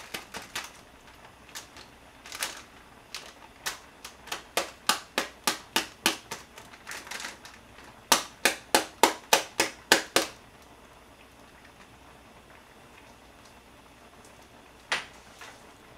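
A foil pouch of seasoned seaweed flakes being tapped and shaken to empty it into a bowl: runs of sharp taps about four a second, the fastest and loudest run just before they stop about ten seconds in, then one more tap near the end.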